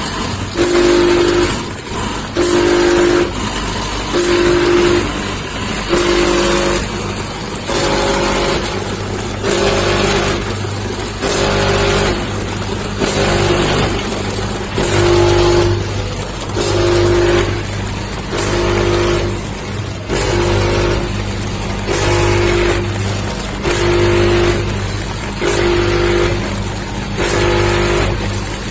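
Automatic pouch packing machine running in its regular cycle, about one cycle every two seconds: each cycle brings a burst of hiss with a short humming tone, over a steady low hum.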